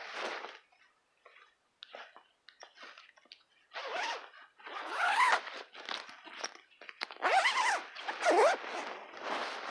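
A zipper on a soft camouflage bow case being pulled in a run of quick strokes, starting about four seconds in and loudest in the second half, mixed with fabric rustling as the phone brushes against cloth.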